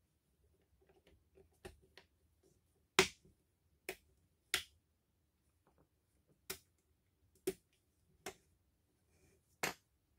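A series of about nine sharp clicks and knocks at irregular intervals, the loudest about three seconds in and again near the end.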